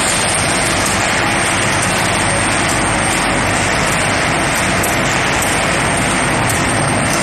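Steel ball forging machine running: the electric motor and gearbox drive the roll stand through cardan shafts, making a loud, steady mechanical noise with a faint high whine held on top.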